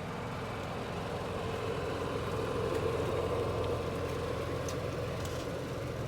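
An engine running steadily at idle, a low hum that holds even throughout.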